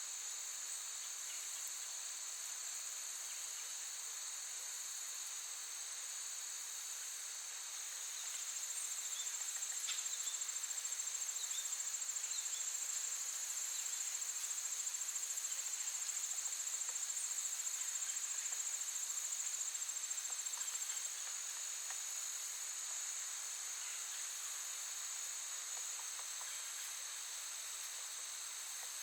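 Crickets chirping in a continuous, high-pitched trill. About eight seconds in a louder trill joins, and it cuts off suddenly some thirteen seconds later.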